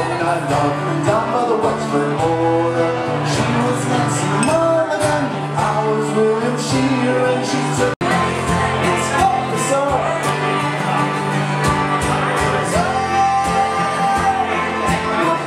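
Live acoustic music: a man singing while strumming a steel-string acoustic guitar, with a fiddle playing along. The sound cuts out for an instant about halfway through.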